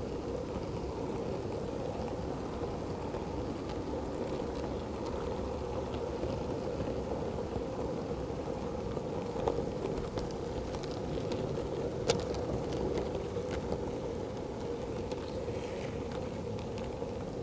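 Model Class 08 shunter running along the layout's track, heard from a camera riding on the train: a steady motor-and-wheel hum, with a few sharp clicks in the second half.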